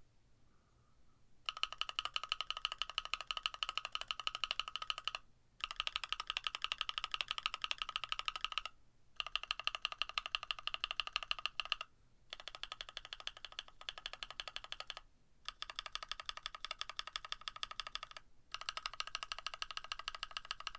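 Fast typing on a mechanical keyboard with Cream+ linear switches that have metal inserts in the stems, mounted on a carbon fiber plate: clacky bottom-outs in six runs of about three seconds, each run broken off by a short pause. The typing starts about a second and a half in.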